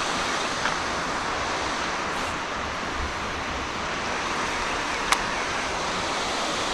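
Steady rush of water, an even hiss with no breaks, and a single sharp click about five seconds in.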